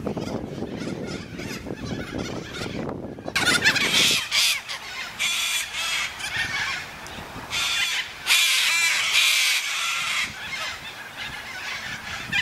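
A flock of white cockatoos screeching: harsh, loud calls in repeated bursts, starting about three and a half seconds in. Before that there is a low rumble.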